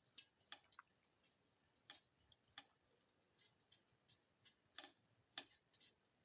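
Faint, irregular clicks and ticks from a pan of shallots, garlic and beans being sautéed and stirred, with two sharper clicks near the end.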